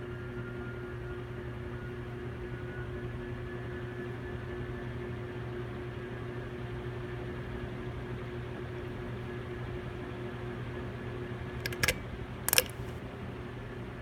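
Dayton 3C691 56-inch commercial ceiling fan's cast-aluminum motor running, a steady hum with several held tones over a faint rush of air. Two sharp clicks near the end, the second louder.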